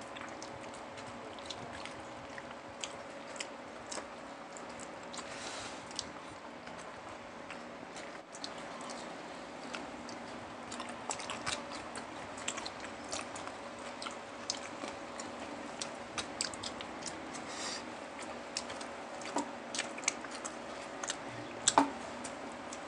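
Close-up mouth sounds of people eating crispy fried pork and rice by hand: quiet chewing with many short, sharp smacks and crunches scattered throughout, a few louder ones near the end, over a faint steady hum.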